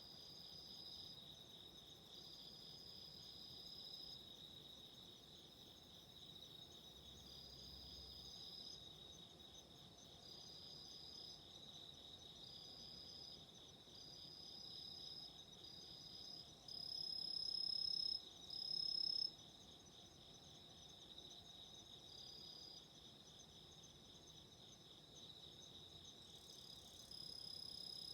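Autumn insects chirping: a steady, fast pulsing trill, with a second, higher-pitched insect singing in phrases of a second or two that stop and start. The higher song is briefly louder about two-thirds of the way through.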